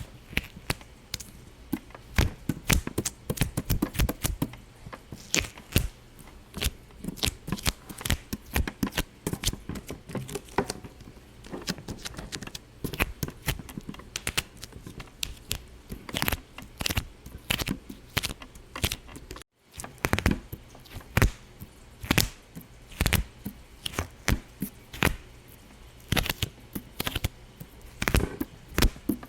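A rapid, irregular run of sharp pops and clicks, several a second, with a brief break about two-thirds of the way through.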